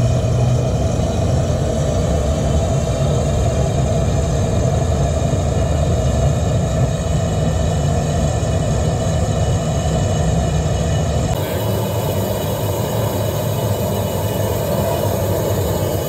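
Natural-gas burner firing steadily, a loud continuous low rumble of combustion. About 11 seconds in the sound changes abruptly to a hissier burn as a different burner firing takes over.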